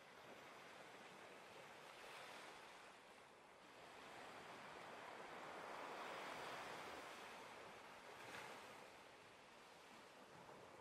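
Faint surf: small waves washing onto a beach, the hiss swelling and falling away slowly, loudest about six seconds in.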